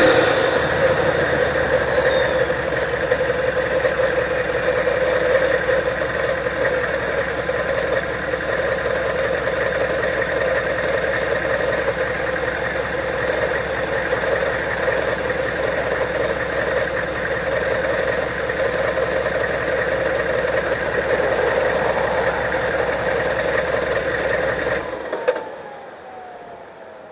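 Straight-piped 6.5 L Detroit turbo diesel running at a steady idle just after a rev, its turbo whistle falling in pitch in the first couple of seconds. About 25 seconds in the engine sound cuts off and a fainter whine winds down.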